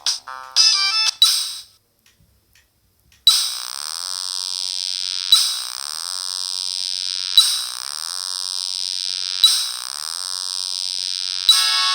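Samsung SGH-E300 mobile phone playing ringtones through its small speaker. A stepping melody ends, and after a short pause an alarm-like tone repeats four times about two seconds apart, each time a sharp onset followed by falling sweeps. A new note melody begins near the end.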